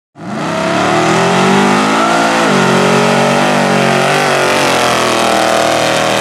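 Pickup truck's V8 engine running hard through a mud pit, the revs dipping and climbing again twice as the tires bite and spin. It cuts in suddenly.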